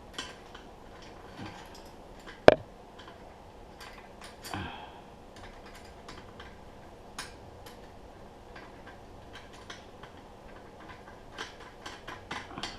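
Small metal brake parts clicking and clinking as they are fitted by hand, scattered light clicks with one sharp, much louder metallic click about two and a half seconds in and a quick run of clicks near the end.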